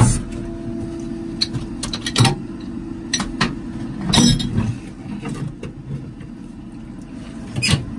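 Sharp metal clanks and knocks as steel drill rod, reamer plate and wrench are handled in a directional drill's pit box. Under them runs a steady hum of the drill's power unit.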